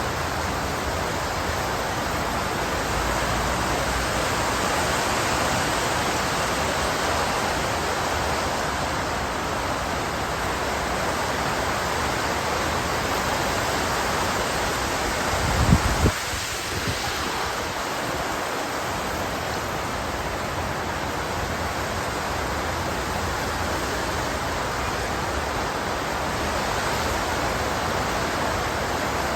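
Heavy squall rain pouring steadily in a dense, even hiss. About halfway through there is one brief, loud low thump.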